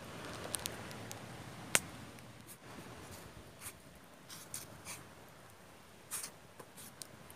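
Wood fire crackling with scattered sharp pops, one louder crack about two seconds in, and soft scraping as a wooden spoon stirs noodles in a steel pot.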